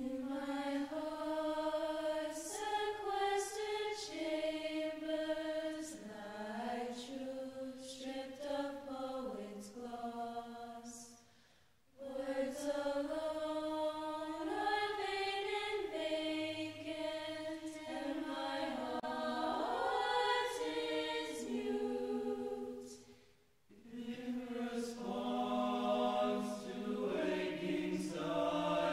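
Background music of a choir singing slow, sustained notes that step from pitch to pitch in long phrases, with two short pauses between phrases, about twelve and twenty-four seconds in.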